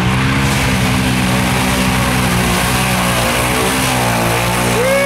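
ATV engine running hard at steady high throttle as the quad ploughs through a deep mud hole. Near the end a person starts a long, held yell.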